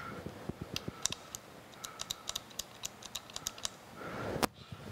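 A run of light clicks and taps from hands working at the oil cups and metal casting of a milling machine's slotting attachment, with one sharper click about four and a half seconds in.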